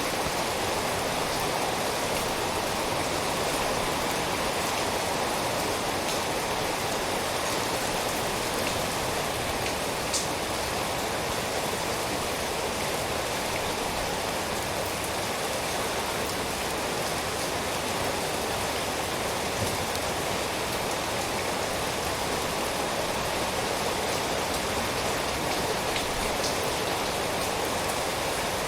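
Steady rain falling, a continuous even hiss with a few faint separate drop ticks.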